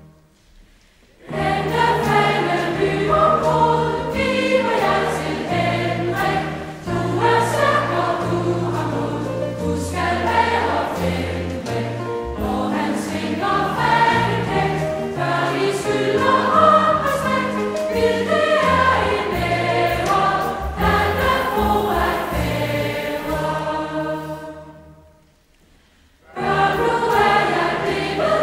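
Background music of a choir singing with accompaniment. It comes in about a second in, fades out to near silence a few seconds before the end, and starts again shortly after.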